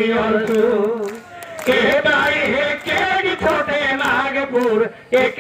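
Men singing a regional song into microphones, amplified through a public-address system, with a short break in the singing about a second in.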